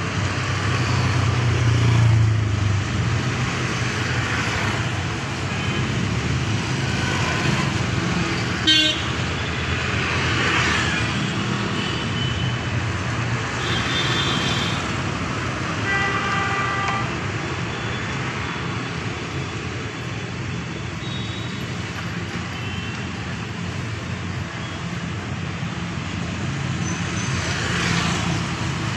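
Street traffic at a city junction: motorcycles, scooters and auto-rickshaws passing with a steady mix of engine and tyre noise, a heavier engine rumbling by in the first few seconds. Short vehicle horn toots sound twice near the middle, and there is a sharp click about nine seconds in.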